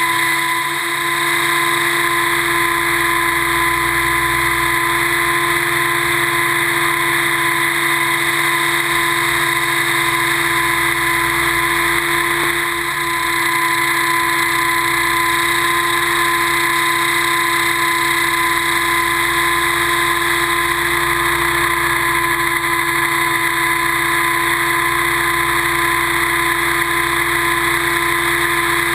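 Kasama 90E radio-controlled helicopter in flight, heard from its onboard camera: a loud, steady whine from the drive and rotors at a constant pitch over a rushing hiss, dipping slightly twice.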